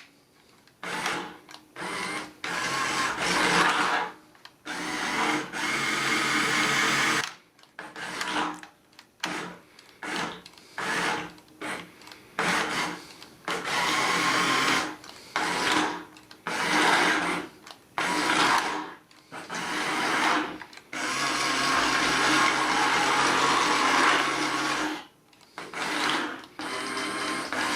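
Small electric drive motor and plastic gears of a remote-control Bumblebee toy car whirring in repeated bursts, starting and stopping over and over as it is driven forward and back.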